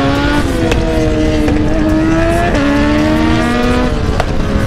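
Kawasaki Z900's inline-four engine pulling under hard acceleration, its pitch climbing steadily with an upshift from second to third partway through. Wind rush is heard on a helmet microphone.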